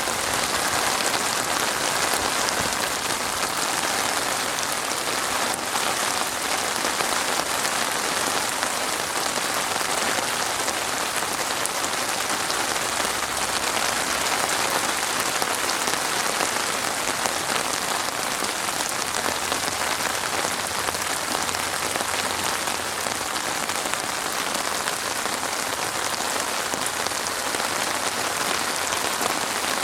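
Steady rain falling, a dense even patter of drops on a surface with no let-up.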